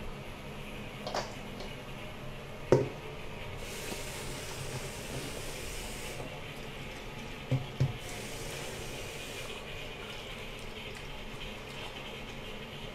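Kitchen tap running into a stainless-steel sink and steel bowl, the flow louder twice for a couple of seconds, with a few short knocks, the loudest about three seconds in.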